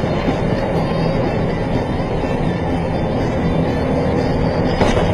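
Steady engine and road noise from a vehicle driving at highway speed: a continuous low drone.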